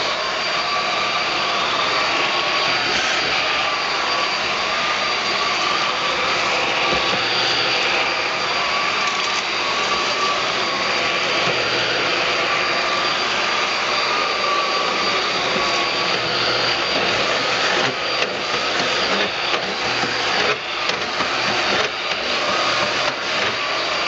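Eureka Flash corded stick vacuum running with its motorized floor nozzle pushed back and forth over a sandy, gritty floor mat: a steady hiss of suction with a steady whine. In the last several seconds the sound dips briefly a few times, with short clicks.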